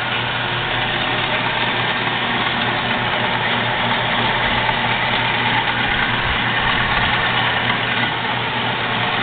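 Jet 7" x 12" horizontal metal-cutting band saw running steadily under its 3/4 hp, 115 V electric motor, a constant motor hum under the whirr of the blade and drive.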